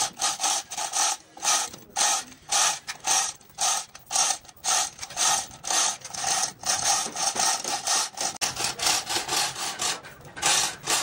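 A hand tool rasping back and forth in repeated strokes, about two a second at first and quicker in the second half, like filing or sawing by hand.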